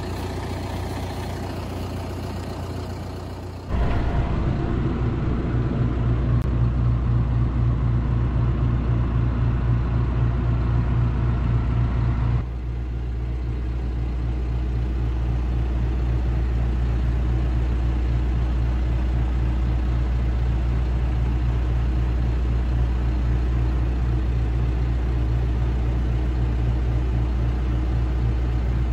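Vehicle engine running steadily, heard from inside the cab: a loud low rumble with a fine flutter that starts abruptly about four seconds in, after a quieter steady stretch, and runs on evenly.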